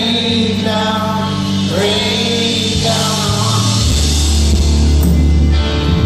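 Live folk-rock band playing, with sung notes held over the instruments. Heavy bass and drums come in about four seconds in.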